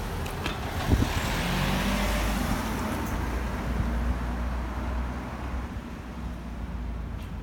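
A motor vehicle driving past on the street, its engine rumble and tyre noise swelling over the first couple of seconds and then fading away.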